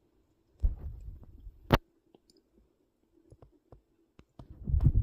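Handling noise: two spells of low rumbling thumps, each ending in a sharp click, with a few faint ticks between them.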